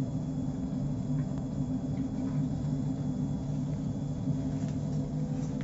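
Atmos wood-gasification boiler running: a steady low rumble with a faint hum, from its draught fan and the burning wood gas.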